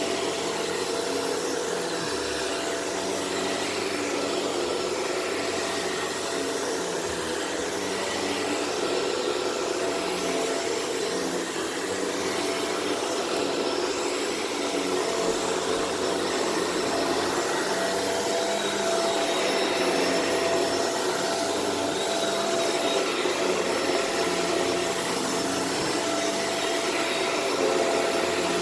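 Shark Rotator Powered Lift-Away vacuum running steadily as it vacuums powder off a carpet, a continuous rush of air with a steady motor whine, slightly louder in the second half.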